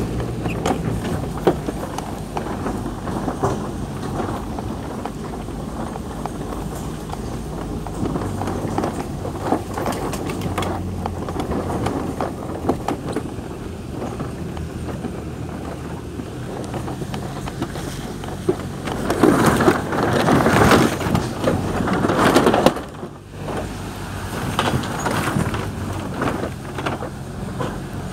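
Wind buffeting and handling noise on a handheld phone microphone outdoors, over a steady low hum, with a louder burst of noise about two-thirds of the way through.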